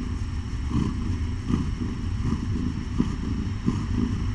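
Mother cat purring close to the microphone while being stroked: a steady low rumble that swells and eases about once a second.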